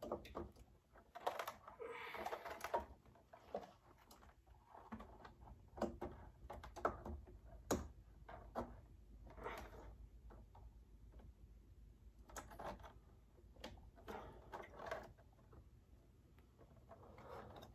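Faint, irregular clicks, taps and brief rustling of plastic and latex parts being handled as a Halloween animatronic's rubber head is fitted onto its neck post.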